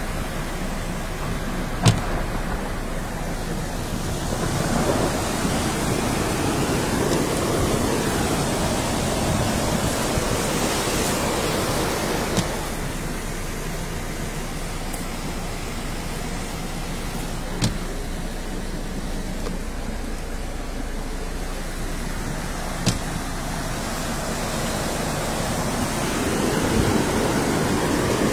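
Steady rushing noise of a muddy flash flood heard from inside a car, with a few short knocks now and then.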